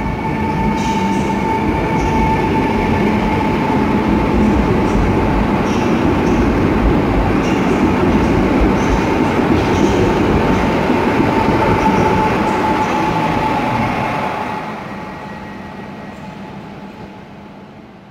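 Pesa Elf II (48WEc) electric multiple unit pulling out of the station and passing close, its traction motors giving a steady whine over the rumble of the wheels. The sound fades away over the last few seconds.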